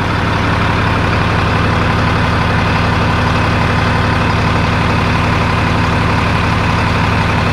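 Tata 1613 SE lorry's diesel engine idling steadily.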